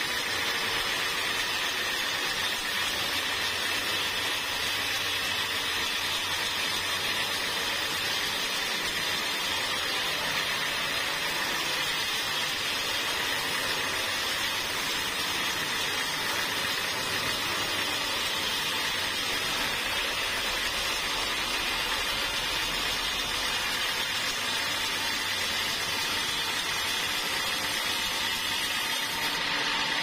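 Band sawmill blade cutting steadily along a large teak log, with the saw's motor running underneath. An even sawing noise with a faint high whine, holding constant throughout.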